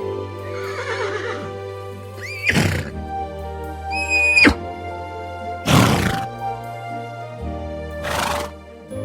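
Horse neighing over background music: a high, held cry that drops sharply at its end, with a shorter cry before it and two short breathy blasts after.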